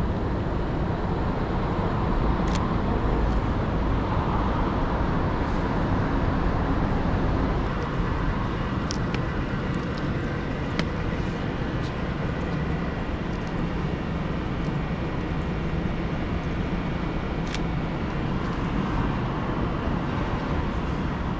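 Steady city-street traffic noise, cars and the general hum of the road, with a few short clicks scattered through it.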